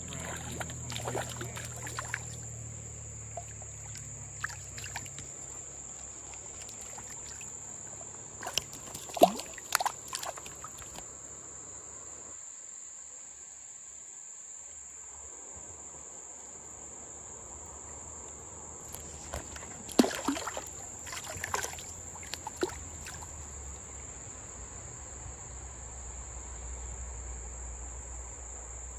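A steady, high-pitched drone of insects runs throughout. Clusters of sharp clicks and knocks come about nine seconds in and again around twenty seconds.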